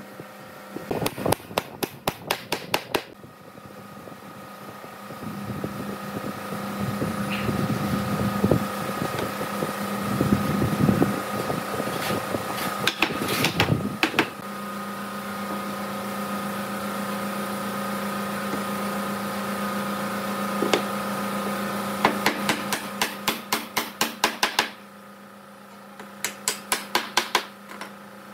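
Rapid mallet taps on wood, driving tenoned posts into their joints, in several bursts of about five blows a second. Between the bursts an electric fan hums steadily.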